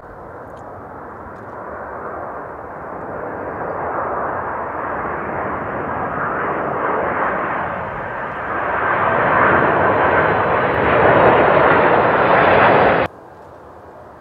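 Jet airliner on final approach passing close overhead: a steady engine rush that grows louder as it nears, with a rising hiss on top. It cuts off suddenly near the end, leaving the fainter rush of the next approaching jet.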